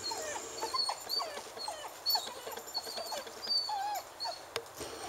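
Labrador puppy whining in a run of short, high whimpers, about two a second.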